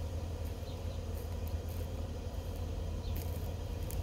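Open-air ambience: a steady low rumble with faint, short high chirps now and then.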